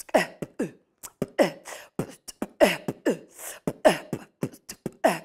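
Vocal percussion under a cappella singing: short voiced notes that slide down in pitch, in pairs about once a second, with mouth clicks and hissy strokes between them keeping the beat.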